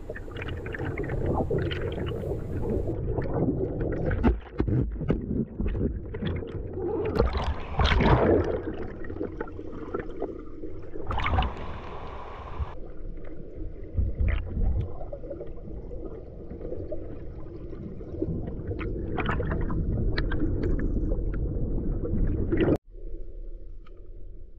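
Water sloshing and gurgling against a camera held at and just below the surface of shallow water, with small splashes and knocks. About 23 s in it cuts suddenly to a duller, quieter underwater murmur.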